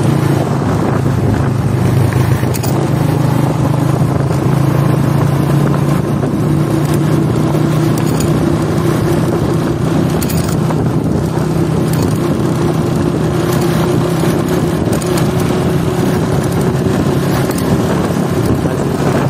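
Old Honda motorcycle engine running steadily while riding along a city street, its note rising a little about six seconds in.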